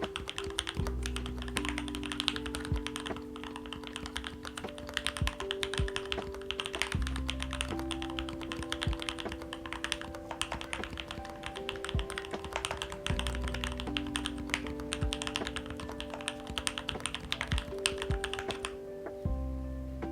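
Fast typing on a Melgeek Mojo75 aluminium gasket-mount mechanical keyboard fitted with lubed Matcha switches: a dense, continuous run of key clacks that stops shortly before the end. Soft background music with sustained notes plays underneath.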